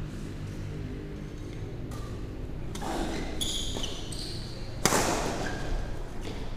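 Badminton rally: rackets striking the shuttlecock, the loudest a sharp hit about five seconds in, with short squeaks of shoes on the court floor, over a steady low hum in a large hall.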